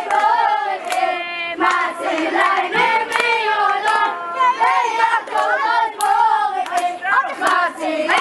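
A crowd of boys chanting together in loud overlapping voices, with sharp hand claps scattered through it. About a second in, one high voice holds a single note for about half a second.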